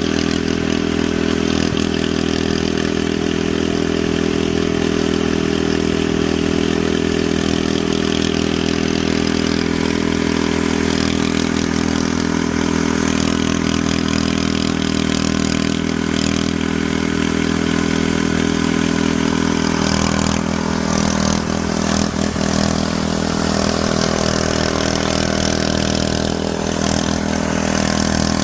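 A steady mechanical drone, engine-like, running without change.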